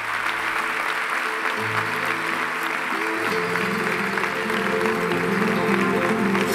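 Audience applauding while music with a steady, stepping bass line plays.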